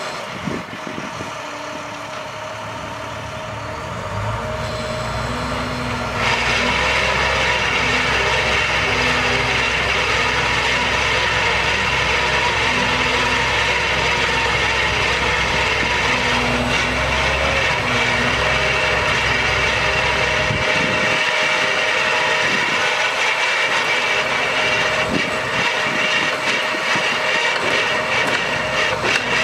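Digger truck's MaxxForce DT diesel running with the Altec digger derrick's hydraulics engaged: a steady engine drone under a high hydraulic whine. It steps up in loudness about six seconds in as the auger is worked.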